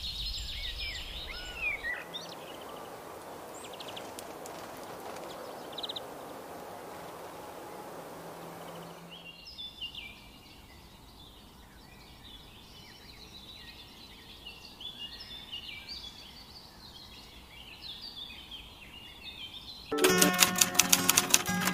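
Birdsong ambience: many small birds chirping in dense, overlapping calls, with a steady hiss of background noise through the first half. A bright music jingle starts abruptly near the end.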